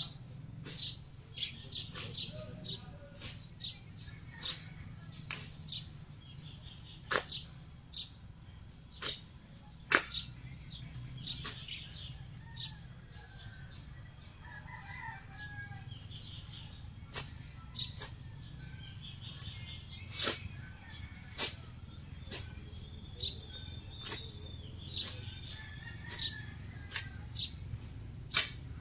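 Hand-cutting grass and weeds with a long blade: sharp, irregular whacks about once or twice a second, the loudest about ten seconds in.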